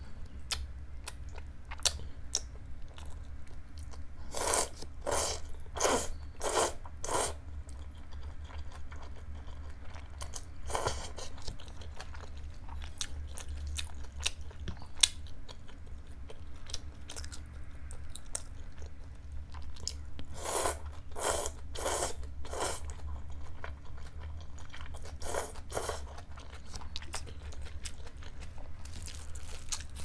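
Close-miked chewing of cold liangpi noodles with shredded cucumber, in runs of about four crunchy chews roughly two-thirds of a second apart, with small wet mouth clicks between them. A steady low hum runs underneath.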